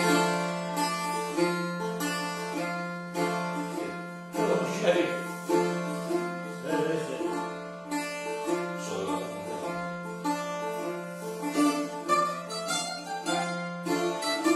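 Two Greek bouzoukis, a six-string trichordo and an eight-string tetrachordo, picked together. A quick plucked melody rings over a low note that repeats almost without a break.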